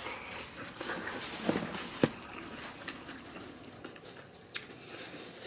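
Biting into and chewing a crisp fried taco shell: small crunching and mouth noises, with one sharp crack about two seconds in.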